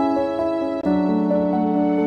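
Instrumental background music of sustained, held notes, with a change to new notes just under a second in.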